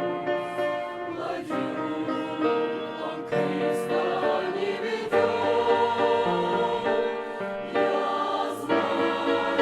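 Church choir singing a Russian hymn in several parts, holding sustained chords that change every second or so.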